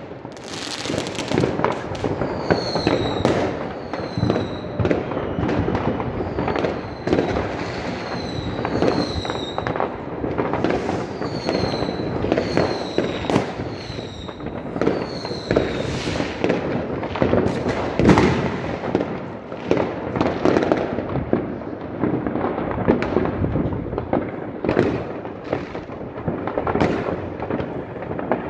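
New Year's Eve fireworks going off all around: a dense, continuous crackle of firecrackers and bangs, the loudest bang about 18 seconds in. Through much of the first half a high whistle falls in pitch again and again, roughly once a second.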